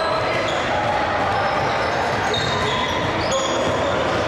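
Live basketball play in a gym: short high sneaker squeaks on the court floor and a bouncing ball over the steady chatter of players and spectators.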